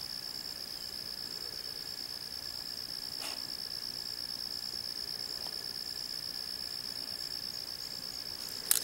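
Crickets chirping in a steady high-pitched chorus, with a brief sharp click near the end.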